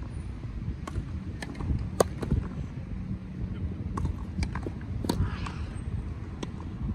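Tennis ball being hit and bounced on a grass court: several sharp, short pops spread through, the loudest about two seconds in. Under them runs a low rumble of wind on the microphone.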